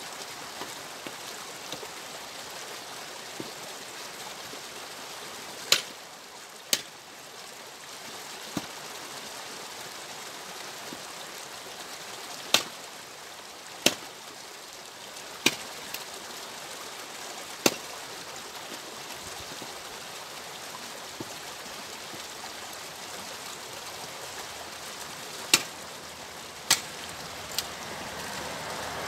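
Firewood rounds being split with an axe: about ten sharp, cracking strikes, some in pairs a second or so apart with pauses between, over a steady rushing hiss that swells near the end.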